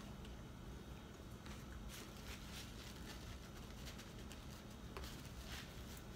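Faint chewing and mouth sounds of someone eating a shrimp po' boy sandwich, with a few soft smacks and clicks over a low room hum.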